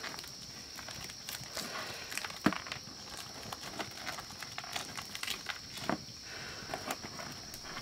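A dried banana leaf parcel rustling and crinkling as it is unfolded by hand, with scattered sharp crackles, the loudest about two and a half seconds in, over a steady high-pitched drone.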